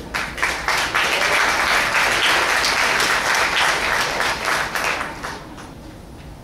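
Audience applauding. The clapping swells right after the start and dies away about five seconds in.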